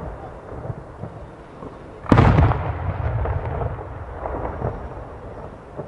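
Aerial fireworks booming: one sharp, loud boom about two seconds in rolls on and fades, over a low, continuous rumble of echoing reports.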